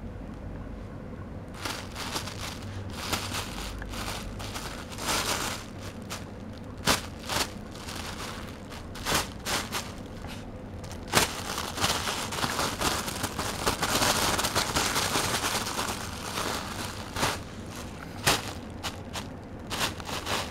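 Thin plastic shopping bag crinkling and rustling in irregular fits as a kitten paws and burrows in it. Sharp crackles start about a second and a half in, and the crinkling is busiest and loudest about two-thirds of the way through.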